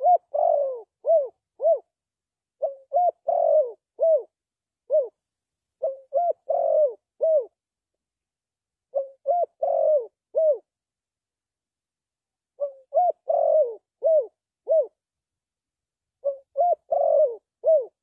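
Spotted dove cooing: a phrase of a short opening coo, a longer falling coo and two or three short coos, repeated every three to four seconds.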